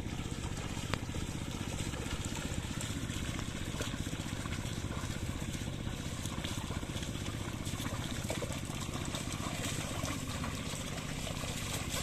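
Bullocks' hooves and a wooden leveling plank sloshing through flooded paddy mud, over a steady low rumble.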